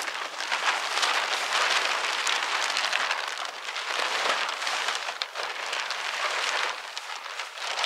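Large white plastic tarp rustling and crinkling continuously as it is pulled and dragged over a wooden frame.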